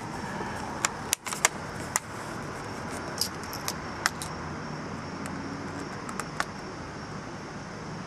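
Scattered small clicks and taps of a Phillips screwdriver and fingers on screws and the plastic underside of an HP laptop as the memory cover is screwed down, over a steady low hiss.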